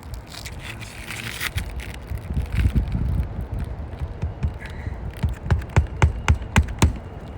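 Hammer driving a roofing nail through an asphalt shingle: handling and scraping of the shingle, then a quick run of about seven sharp strikes near the end, with wind rumble on the microphone.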